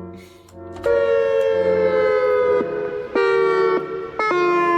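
Outdoor warning siren sounding a string of loud, steady tones. The first starts abruptly about a second in, and each breaks off suddenly and comes back at a slightly different pitch, sagging a little while it holds.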